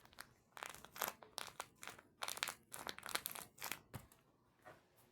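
Crinkling and rustling of crinkly material being handled, a quick irregular run of short crackles that dies away about four seconds in.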